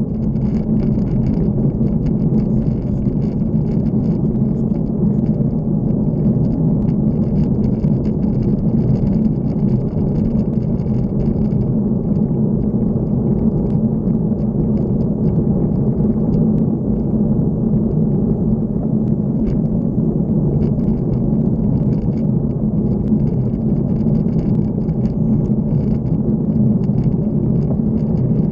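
Steady wind rumble on a bike-mounted camera's microphone with road noise from riding along at speed. A faint high whine rides over it and fades about twelve seconds in.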